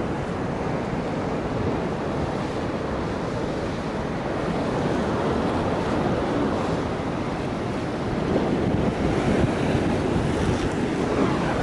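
Strong wind of a dust storm buffeting the microphone, with sea surf against the breakwater underneath; the gusts grow louder about eight seconds in.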